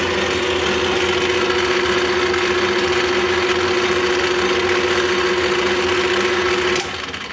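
Clausing Colchester 13-inch gearhead lathe running with its power feed engaged: a steady gear whine over busy gear noise. About seven seconds in it is switched off with a click, and it quickly runs down.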